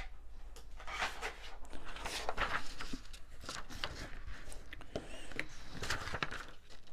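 A card panel being handled and lifted out of a plastic stamping platform: scattered light taps, clicks and paper rustling.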